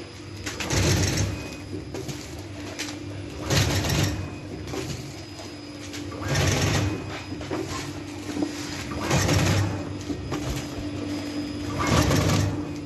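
Small vertical powder packing machine running with a steady hum, a loud rush of noise coming about every three seconds as it cycles through each pack.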